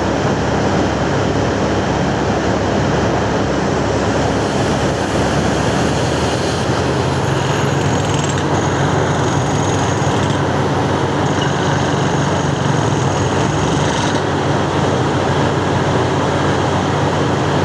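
Mining drill rig running continuously, a loud steady mechanical din from its engine and air compressor as it drills.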